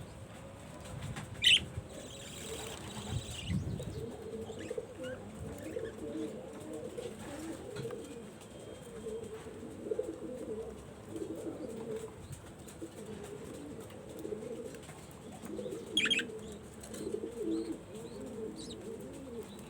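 Pigeons cooing continuously in a low, wavering warble. Two short, sharp high chirps cut through, about a second and a half in and again near the end, with a brief rustle of wing flapping early on.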